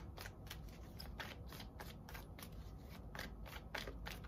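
Tarot cards being shuffled by hand: a run of short, crisp card flicks, about four a second.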